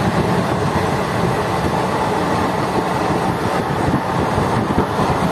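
Passenger express train running at speed on the rails, heard from inside a coach: a steady rumble of wheels and track with rushing noise over it.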